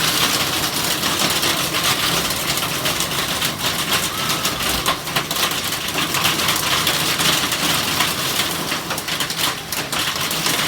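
Heavy rain pouring down: a dense, steady hiss of countless drops, with sharp individual drop hits speckled through it.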